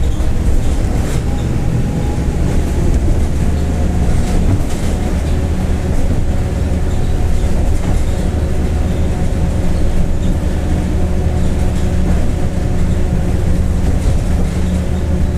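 Mercedes-Benz OF-1721 BlueTec 5 bus under way at steady speed, its diesel engine running with an even hum and its rear differential growling ("roncando").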